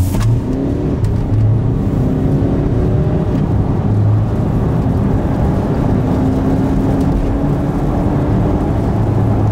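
VW T6 Transporter's 2.0 diesel with DSG gearbox, remapped, accelerating, heard from inside the cab: the engine note rises, drops back at two quick automatic gear changes in the first few seconds, then climbs slowly in a longer pull, over steady road rumble.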